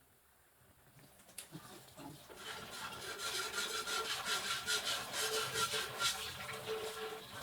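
Rapid, repeated scraping or rasping strokes that start about two seconds in and grow louder, with a faint steady hum underneath.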